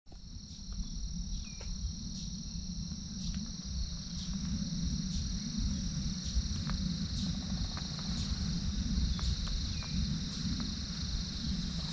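A steady, high-pitched chorus of insects, unbroken throughout, over a low rumble, with a few faint clicks.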